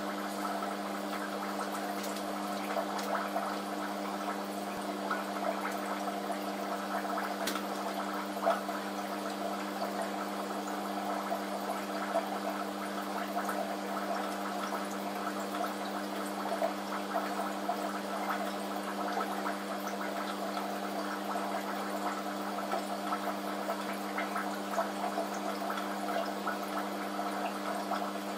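Aquarium water bubbling steadily from the tank's aeration or filter, over a constant low electric hum from its pump.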